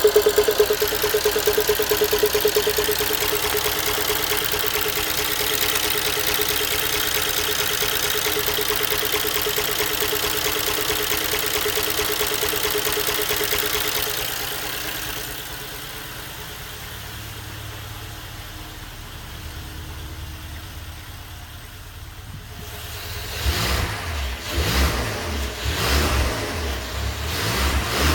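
BMW S63 twin-turbo V8 of a 2011 X5M running with a steady, rapidly pulsing tone, the weird noise that the owner traces to the passenger-side turbo; the tone stops about halfway through. Near the end the engine is revved in several short blips.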